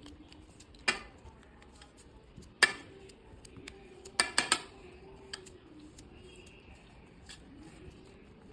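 A utensil clinking and tapping against a bowl while clay is mixed. There are sharp single taps about a second in and again near three seconds, then a quick run of three taps around four seconds.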